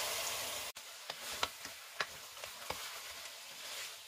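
Chicken pieces browning in hot oil with onions in a steel pot: a steady sizzle that drops abruptly in level a little under a second in, with a few sharp clicks and pops after.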